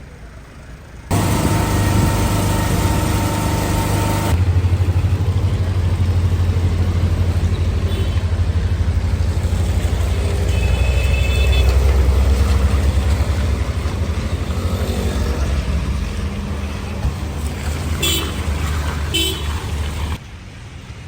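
A motor vehicle engine running close by in traffic, a steady low drone that starts and stops abruptly. A horn toots briefly about halfway through.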